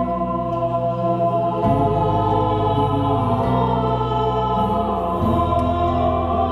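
Choir chanting slow, sustained chords, the low voices moving to a new held note every couple of seconds.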